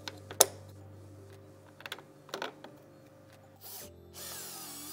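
A few sharp clicks of hardware being handled, then a DeWalt cordless screwdriver runs briefly about four seconds in, its motor whir falling in pitch as it drives a screw into the body panel.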